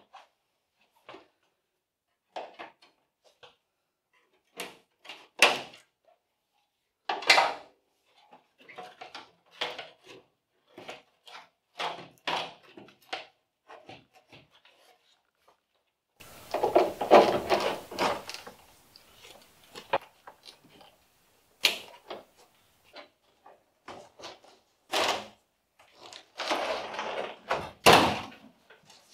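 Scattered clicks, knocks and clatter of plastic trim being worked loose as the black plastic windscreen cowl panel of a 1992 Honda Civic is pried free and lifted out, with a longer scraping rustle about halfway through. Near the end, more knocks and rubbing come as a large panel is handled inside the stripped shell.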